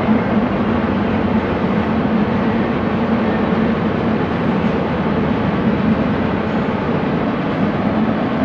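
Steady rumble of a double-stack intermodal container train's cars rolling along the rails.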